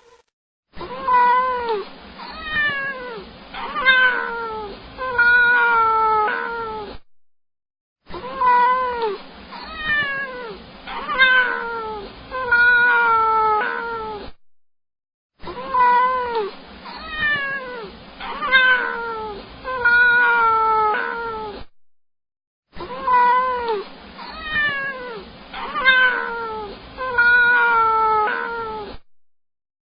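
A domestic cat meowing: a string of about six meows, each falling in pitch, played four times over with short silences between.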